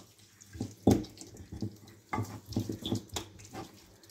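Wet sounds of hands working raw lamb pieces in an oily marinade of salt and food colouring in a glass bowl: a few irregular squishes and taps, the loudest about a second in.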